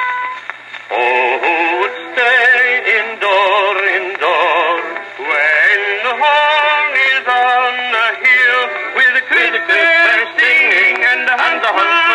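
Antique Edison Home phonograph playing a cylinder record through its horn: a singer with strong vibrato comes in about a second in. The sound is thin and narrow, with no deep bass or bright treble.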